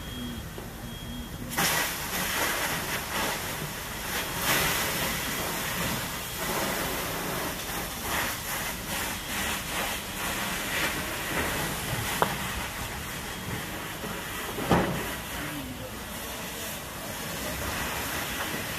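Hissing of a fire hose's water spray and steam on a burning car. It starts abruptly about a second and a half in and goes on in surges, with two sharp pops a few seconds apart past the middle.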